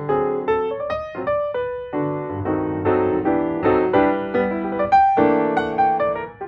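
Piano music: a quick run of struck notes and chords, each fading after it is struck, with no singing.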